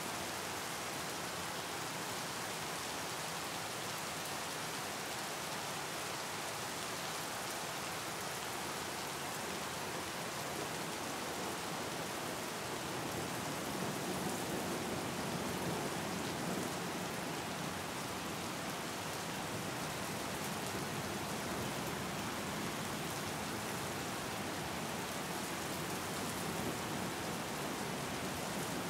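Steady rain: an even, unbroken hiss of falling drops, swelling slightly about halfway through.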